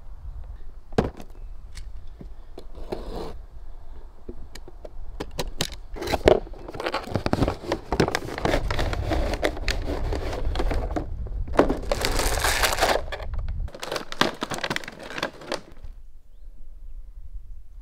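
Cardboard box and plastic packaging being handled and opened: rustling, scraping and crinkling with scattered taps, loudest in a long rustle about twelve seconds in, then quieting shortly before the end.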